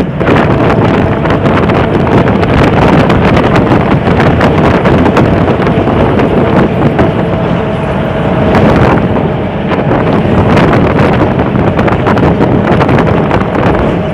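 Motorcycle engine of a Philippine tricycle running at road speed with road noise, heard from the sidecar, with heavy wind buffeting the microphone.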